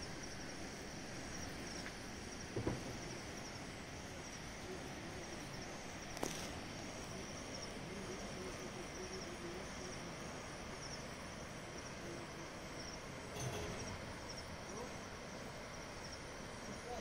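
Outdoor hillside ambience: insects chirping steadily in a high, repeating pattern over a soft even hiss, with a few brief knocks.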